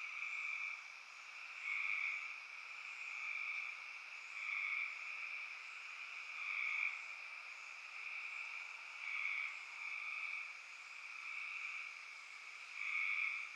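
Night chorus of frogs trilling: a steady high trill, with louder overlapping calls swelling up about every one to two seconds.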